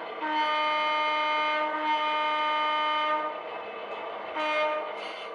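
HO scale model locomotive's sound-decoder horn blowing two long blasts and then a short one, over the decoder's steady engine sound.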